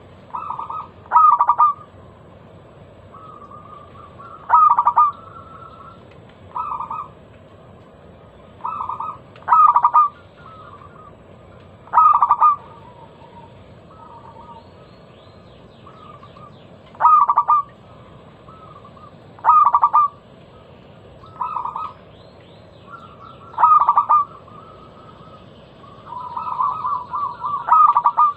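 Zebra dove (perkutut) cooing: short rolling phrases of coos, a loud one every two to four seconds with softer ones between. Faint high chirping from another bird is heard in the second half.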